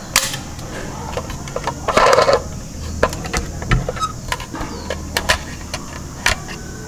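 Toy truck being handled: a string of sharp plastic clicks and knocks from its moving parts, with a louder scraping rattle about two seconds in.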